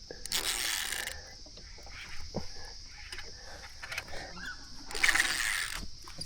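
Fishing reel working as a hooked barramundi is fought from a kayak, with two louder rushes of noise, one just after the start and one about five seconds in, over a steady high hiss.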